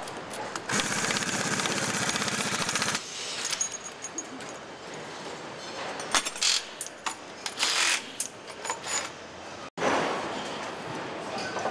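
A hand-held power wrench rattling rapidly for about two seconds while fastening parts on a truck diesel engine, followed by scattered metallic clinks and knocks of tools and parts over steady factory hum.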